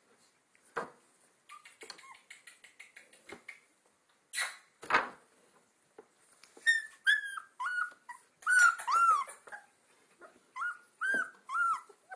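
Two-week-old Alaskan Malamute puppies whimpering and yipping: a run of about a dozen short, high-pitched cries that starts about halfway in. Before it come soft taps and two short noisy bursts.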